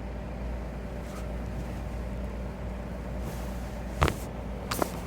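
Steady low rumble and hum of a car's interior with the engine running, with a sharp click about four seconds in and two smaller clicks near the end.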